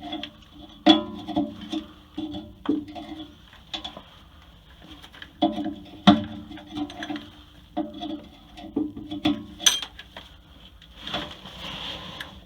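Small metal parts and tools clinking and knocking irregularly while the fittings of an air brake valve are handled and worked loose.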